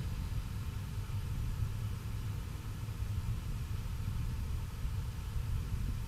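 Steady low rumble of ambient noise.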